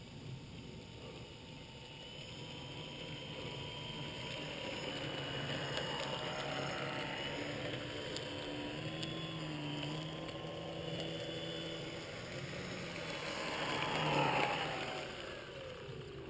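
Electric motor and propeller of a Multiplex FunCub RC model plane whining as it lands and taxis in close. The whine grows louder and climbs slightly in pitch, then slides down about fourteen seconds in as the motor is throttled back.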